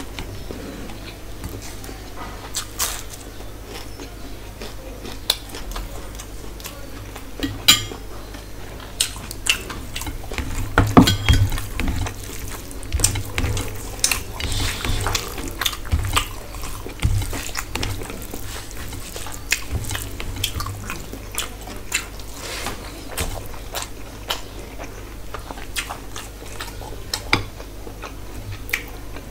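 Hand-eating at a steel plate: fingers mixing rice and curry gravy, with scattered clicks and scrapes against the metal plate and a few dull knocks in the middle.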